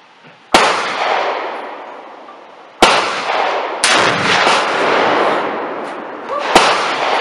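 Four heavy rifle shots with long echoes, among them the .50 BMG rifle firing: sharp reports about half a second in, near three seconds, about a second later, and again near the end, each trailing into a long rolling echo that dies away over a second or two.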